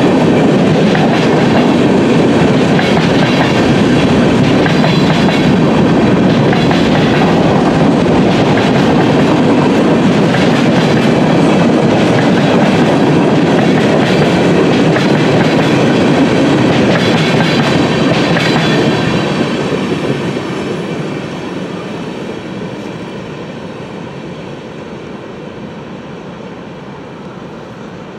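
Freight train cars rolling past close by: a steady loud rumble with rapid wheel clicking, easing off about two-thirds of the way through.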